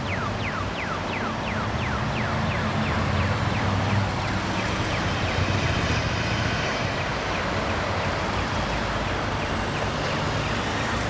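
City street traffic: a steady rumble of cars, swelling as a car drives past. Over the first few seconds a rapid series of short falling chirps, about four a second, fades out.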